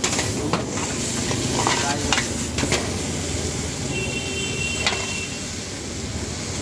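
Chicken fried rice sizzling in a large wok over a gas burner, with a metal ladle knocking and scraping against the wok several times, mostly in the first three seconds, as it is stir-fried.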